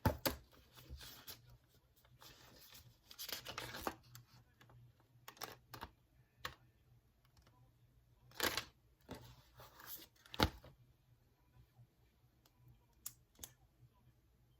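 Wood fire crackling: irregular sharp pops and snaps, with a louder pop about ten seconds in.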